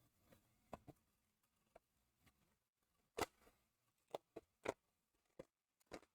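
Faint, scattered taps and clicks of a cardboard box being handled and folded, with the loudest taps about three and four and a half seconds in.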